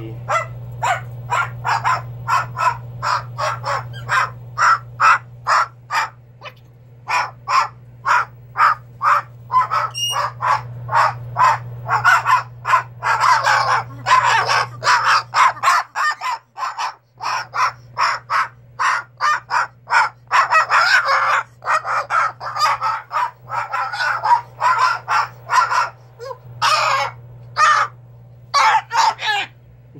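Pet cockatoo giving a rapid run of short, harsh squawks, about three a second, with a brief pause about halfway through. A steady low hum lies underneath.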